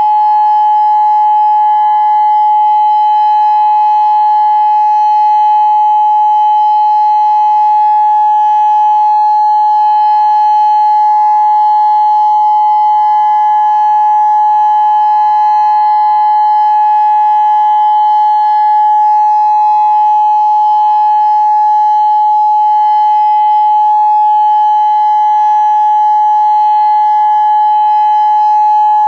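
Federal Signal Modulator 6024 electronic warning siren sounding its steady alert tone during a siren test. It is loud and unbroken, a single held pitch that neither rises nor falls.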